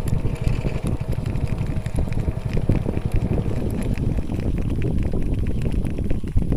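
Wind buffeting the microphone: a loud, uneven low rumble with no engine tone, with faint light ticks above it.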